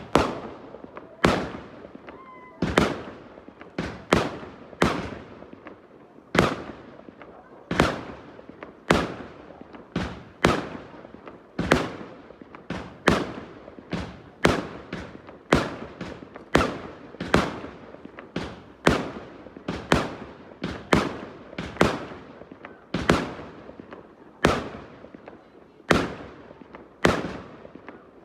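Fireworks going off in a steady series of loud bangs, about one every second and a half, each followed by a fading echo.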